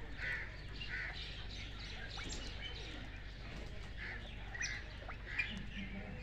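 Birds chirping and calling repeatedly, short high notes coming every fraction of a second, over a faint steady hum.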